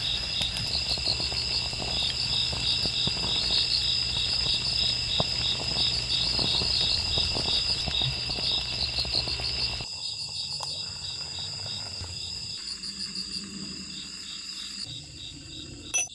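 Crickets chirping in a fast, even pulse throughout. For about the first ten seconds, under it, a small pan of sauce bubbles with many small pops, which then drop away; a single sharp click comes near the end.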